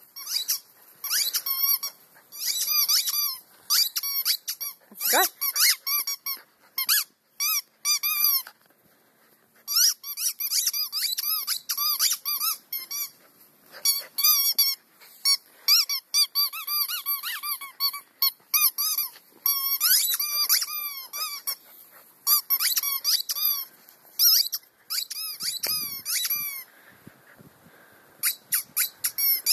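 A puppy chomping a rubber squeaky toy, setting off quick runs of sharp, high squeaks one after another, broken by pauses of a second or two.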